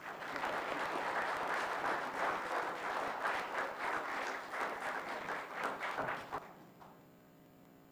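Audience applauding, starting all at once and dying away after about six and a half seconds.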